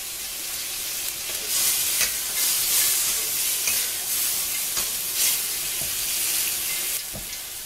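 Tomatoes and scrambled egg sizzling in a wok over high heat while being stirred, with scattered clicks of the stirring. The sizzle grows louder about a second and a half in and eases near the end.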